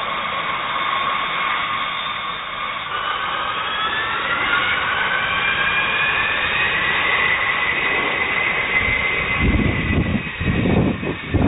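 Boeing B-52H Stratofortress's Pratt & Whitney TF33 turbofan engines whining as the bomber taxis, the whine rising in pitch from about three seconds in and then holding. Wind buffets the microphone with low rumbles in the last couple of seconds.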